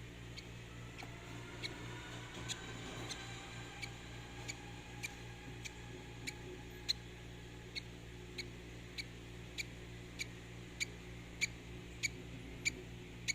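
Two-day-old African lovebird chicks peeping: short, high cheeps repeated evenly about every two-thirds of a second, over a steady low hum.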